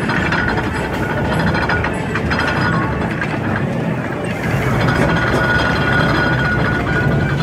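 Steam traction engine driving slowly, its motion and gearing clanking in a steady run. A steady high tone joins about halfway through.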